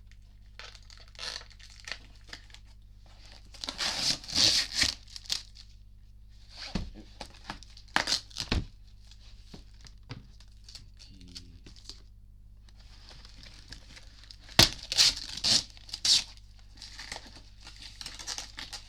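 Packaging being torn open and handled during an unboxing. It comes as bursts of tearing and crinkling, with a few sharp clicks or knocks in among them.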